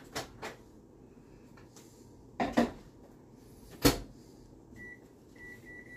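Microwave oven being loaded and set: a few knocks and clunks, then the door shutting with a sharp click about four seconds in, followed by a quick series of short, high keypad beeps as the cooking time is keyed in.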